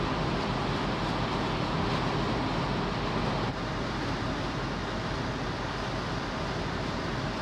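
Steady rumble and rush on the open deck of the ferry Sunflower Murasaki as it berths: the ship's engines and ventilation hum under wind and water noise. The sound drops slightly in level about three and a half seconds in.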